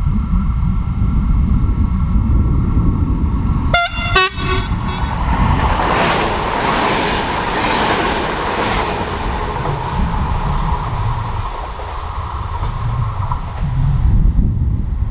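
A train passing on a mainline sounds a short two-note horn toot about four seconds in, followed by several seconds of wheel and rail noise that fades out. Wind rumbles on the microphone throughout.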